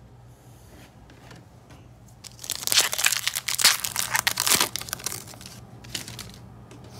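Foil trading-card pack wrapper crinkling for about two and a half seconds, beginning about two seconds in, with one light tick after it.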